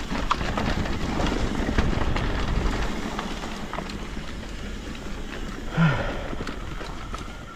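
Mountain bike descending a dirt trail: tyres rolling over dirt with wind on the microphone and a run of small knocks and rattles from the bike over rough ground. About six seconds in there is a brief loud sound that drops in pitch.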